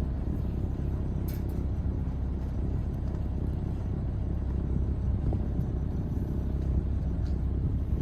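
Sailboat's inboard engine running steadily, a low rumble while the boat powers against the spring line to spring off the dock.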